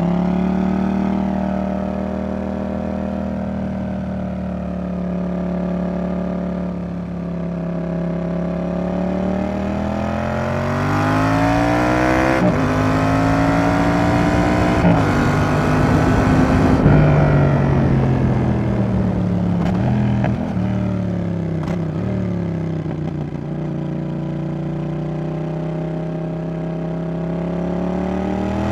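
Yamaha XSR700's CP2 parallel-twin engine through a Roadsitalia aftermarket exhaust, ridden through twisties. The revs climb under acceleration from about a third of the way in, with gear changes on the way up, then fall away under deceleration and pick up again near the end.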